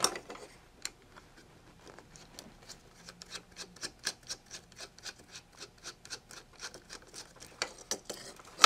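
Metal screwdriver scraping and clicking against a small circuit board and its heatsink as it is worked loose: a run of small, irregular clicks, a few a second.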